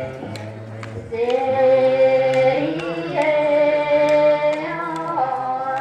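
Tibetan monastic ritual music accompanying a cham dance: a melody of long held notes that step up and down in pitch over a steady low drone, with a few light sharp hits.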